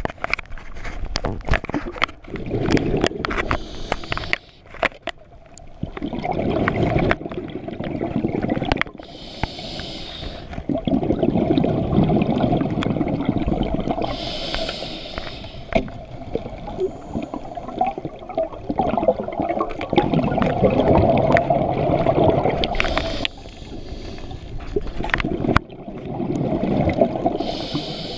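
Scuba diver breathing through a regulator underwater, about five breaths: a short hiss on each inhale, then a long rush of exhaled bubbles, with scattered clicks and knocks.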